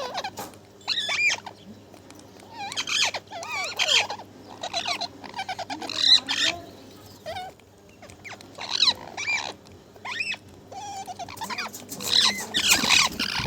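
Parrot chattering and squawking: a string of short calls with wavy, sliding pitch, spaced roughly a second apart and coming thicker near the end.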